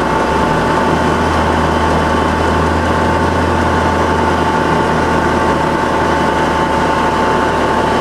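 1977 Ohmiya OC-16A centerless grinder running under power, its hydraulics up and wheels turning: a loud, steady mechanical hum with a constant high whine over it.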